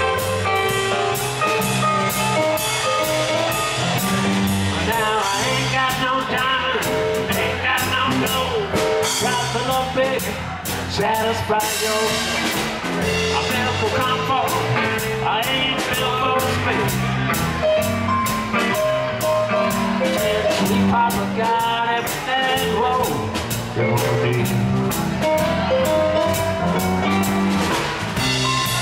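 Live blues band playing a 12-bar blues in C: electric guitar over electric bass, keyboard and a drum kit with steady cymbal strokes.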